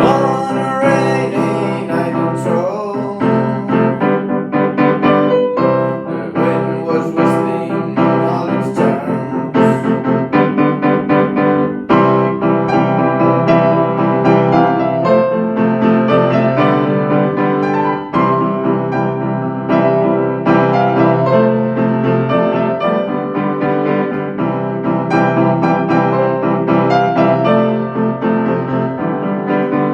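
Piano music playing continuously, with many notes and chords in quick succession.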